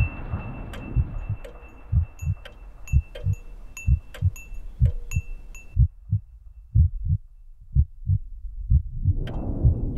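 Sound-design heartbeat: deep paired thumps, lub-dub, about once a second. Over the first six seconds high ticking clicks ring out over a faint steady high tone, then stop abruptly. A swell of noise rises near the end.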